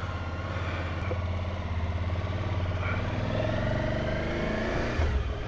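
Suzuki V-Strom DL1000's V-twin engine running, a steady low engine note with a brief louder bump near the end.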